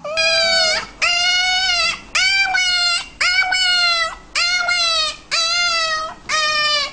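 A pet dog whining in a series of seven high, drawn-out cries, about one a second, each dropping in pitch as it ends.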